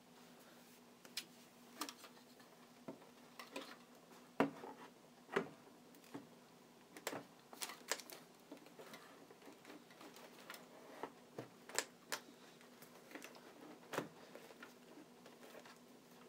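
Hard plastic Uniden phone base knocking and clicking against the wooden mount and its screw heads as it is worked onto the wall, in scattered light knocks at an irregular pace with a few louder ones, over a faint steady hum.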